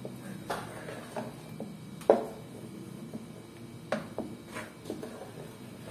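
Wooden spoon stirring a thick creamy milk mixture in a pan, scraping and knocking irregularly against the pan's bottom and sides, with one louder knock about two seconds in.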